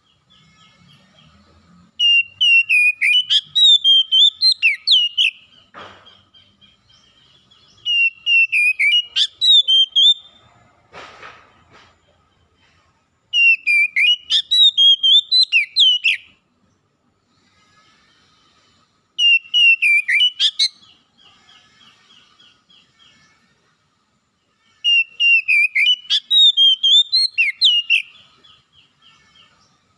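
Oriental magpie-robin singing: five loud phrases of rapid, sliding whistled notes, each about three seconds long and coming every five to six seconds, with softer trilling between them. Two brief rustles fall between the first phrases.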